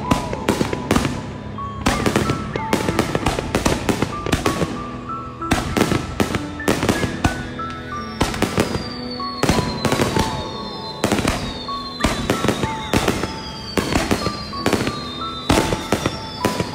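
Aerial firework shells bursting in rapid, near-continuous succession, several sharp bangs a second, heard from close under the bursts. Music with a stepping melody plays underneath.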